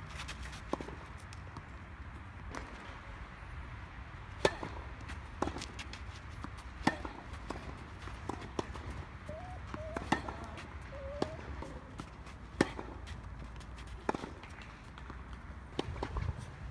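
Tennis rally on a clay court: sharp pops of rackets striking the ball, the loudest ones a couple of seconds apart, with fainter hits and bounces in between.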